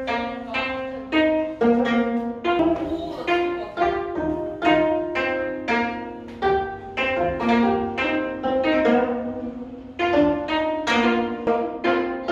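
Plucked-string music: a lilting melody of single plucked notes, some sounded together, each ringing briefly and dying away, at a steady pace of about one or two notes a second.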